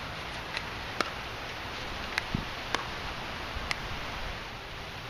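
Plastic pickleball being tapped with a paddle on soft spin dinks and bouncing on the hard court: a few sharp clicks about a second apart, the loudest about a second in, with one dull low thump a little past two seconds, over a steady background hiss.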